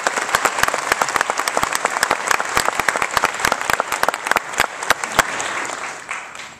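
Audience applauding, with dense clapping that thins out after about five seconds and dies away near the end.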